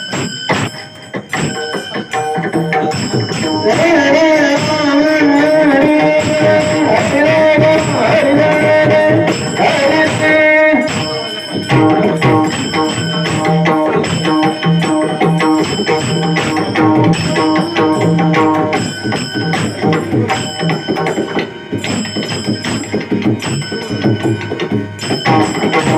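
Bhajan music with pakhawaj drumming under steady sustained instrumental tones; a long wavering sung phrase rises over it from about 4 s to 11 s, after which the pakhawaj and the accompaniment carry on in an even rhythm.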